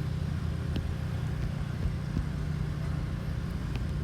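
Steady low rumble of city traffic, with a few faint ticks over it.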